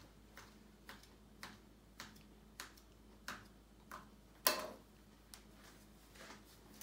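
Plastic knife blade clicking down onto a quartz countertop as a rope of gnocchi dough is cut into pieces: light, quick clicks roughly every half second, with one louder knock about four and a half seconds in.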